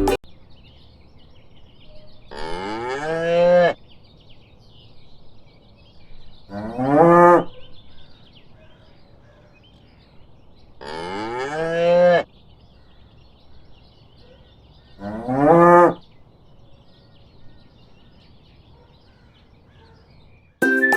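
Cow mooing four times, each moo one long call that rises in pitch, several seconds apart.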